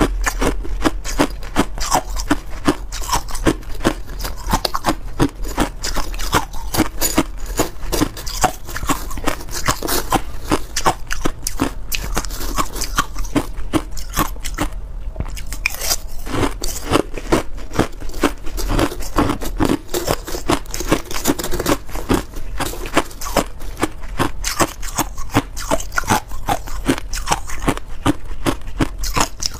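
Crushed ice being bitten and chewed close to a clip-on microphone: dense, rapid crunching, with a brief lull about halfway through.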